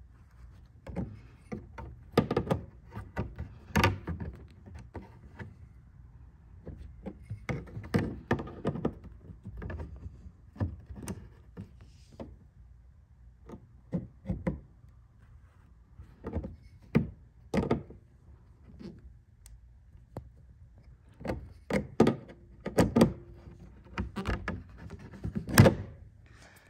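Irregular clicks, taps and knocks of a hand tool and metal screw being worked into the mounting hole of a plastic rock guard inside a wheel well. They come in short clusters of quick clicks, with pauses between.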